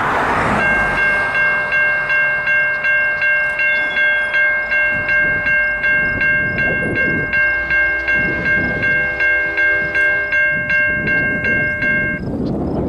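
Railroad grade-crossing warning bell ringing in quick, even strokes, about two and a half a second. It starts about half a second in and stops shortly before the end.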